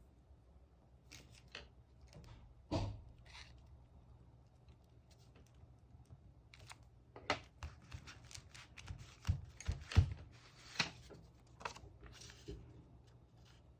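Paper and stationery being handled on a desk for diary scrapbooking: scattered short rustles, clicks and light tearing or snipping sounds, busier in the second half. A few low knocks come about three seconds in and around ten seconds in.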